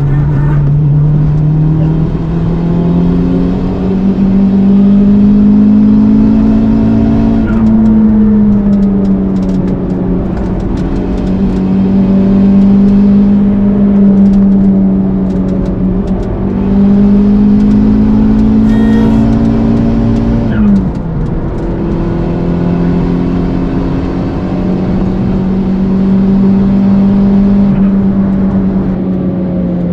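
Toyota Starlet Glanza V's turbocharged 1.3-litre four-cylinder engine running under load, heard from inside the car. Its pitch rises and falls slowly with the throttle, then drops sharply about twenty seconds in.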